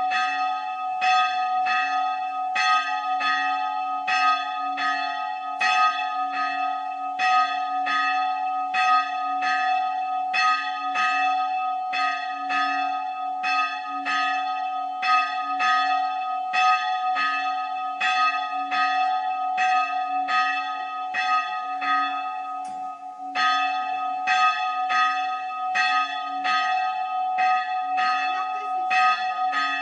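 Church bell of the old island church on Spiekeroog ringing. It is struck steadily by its clapper, about three strokes every two seconds, over a continuous hum from the bell. The strokes break off briefly about two-thirds of the way through.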